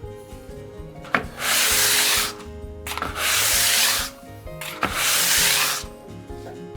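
Three scraping strokes of a tool worked over a surface, each about a second long and starting with a sharp click, over background music.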